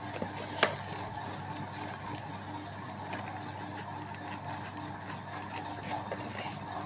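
Cardboard mailer being handled and opened by hand, with a short scraping rip of cardboard or packing tape about half a second in and light rustles and taps after it, over a steady low hum.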